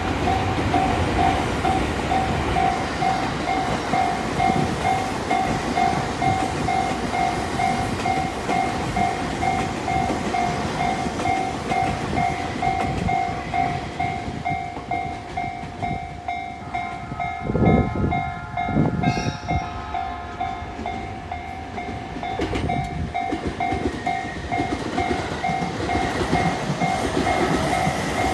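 Japanese railway level crossing warning bell ringing in a steady, even, repeating ding, while a train rumbles past with some clickety-clack of wheels on rail joints. A brief louder sound comes about seventeen seconds in.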